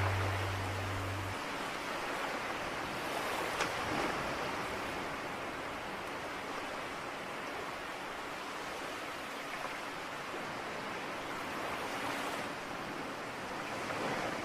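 Sea waves washing on a shore: a steady surf that swells about three seconds in and again near the end.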